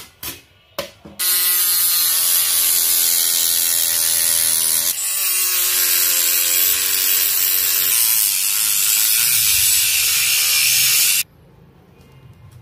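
Handheld rotary tool with a thin cutting disc cutting perforated sheet steel: a loud, high-pitched grinding whine lasting about ten seconds, its pitch dipping briefly about halfway, then cutting off abruptly. A few short knocks just before it starts.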